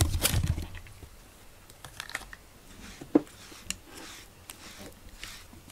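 Grooming brush stroking a cat's fur: soft rustling strokes with a few small scattered clicks, the sharpest about three seconds in.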